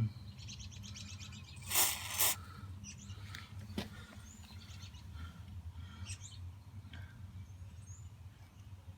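Birds chirping faintly over a steady low hum, with one loud hiss lasting about half a second about two seconds in and a single click near the middle.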